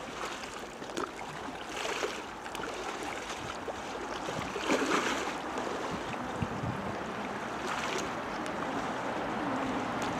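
Steady rushing of wind and water, swelling briefly a few times.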